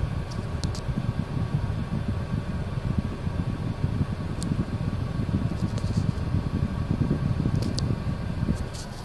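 Steady low rumble of background noise inside a car, with a few faint ticks.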